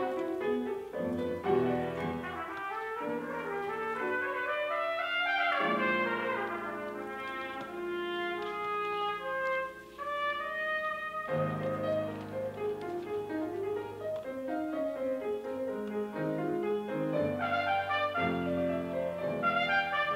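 A trumpet plays a classical melody with grand piano accompaniment, with a short break in the phrase about halfway through.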